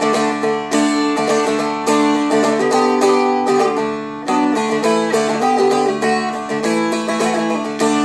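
Seagull Merlin, a four-string fretted dulcimer-style instrument, strummed in a steady rhythm and ringing, changing between basic chords every couple of seconds as chord-change practice.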